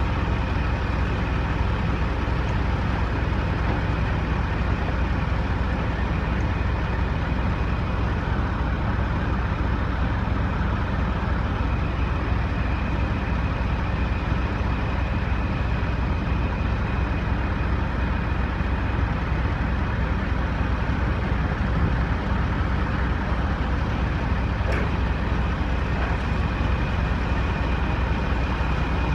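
Diesel engines of Peterbilt semi trucks hauling livestock trailers, running at low speed as the rigs manoeuvre, a steady deep rumble with a thin steady high whine over it. A single brief click comes near the end.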